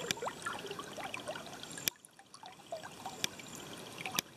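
River water trickling and gurgling close by, with many small bubbling plops. A sharp click about two seconds in, after which the water is quieter, and another sharp click near the end.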